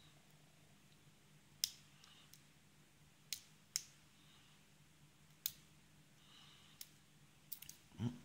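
Faint, scattered metallic clicks of a short hook pick and tension tool working the pin tumblers of a brass Abus 85/50 padlock during single pin picking, about eight sharp ticks spread irregularly over several seconds.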